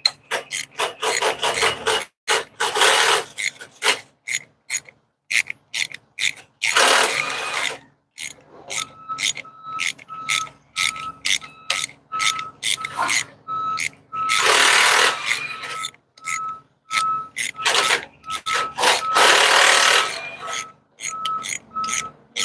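Ratchet wrench clicking in rapid runs as it backs out a bolt on a DT12 truck transmission's shift control mechanism, with several longer spins of a second or two. A high beep repeats about twice a second in the background from about nine seconds in.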